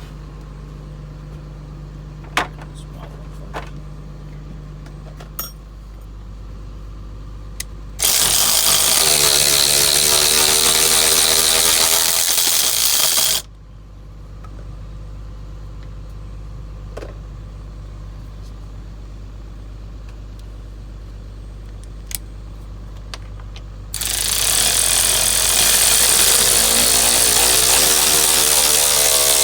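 A power tool runs twice with a loud, even rushing noise, for about five seconds from about eight seconds in and again near the end, over a steady low hum. A few light tool clicks come between.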